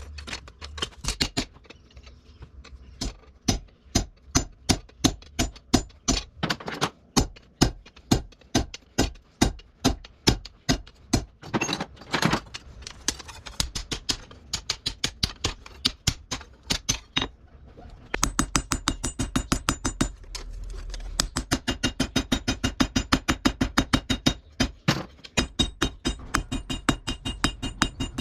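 Repeated hammer blows on steel, forging 52100 bearing steel into a blade. They come in steady runs of about two to three strikes a second, quickening to about five a second about two-thirds of the way through, with brief pauses between runs.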